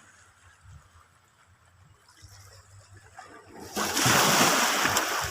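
Water splashing in a loud rush that starts about three and a half seconds in and lasts a couple of seconds, over a faint low hum.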